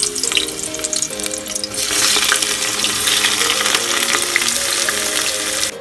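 Sliced onions sizzling as they fry in hot oil in an aluminium pressure cooker. The sizzle grows louder about two seconds in and cuts off abruptly near the end.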